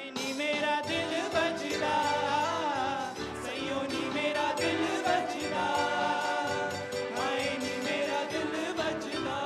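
Live band playing a song: singing over violin, acoustic guitar, keyboard and drums.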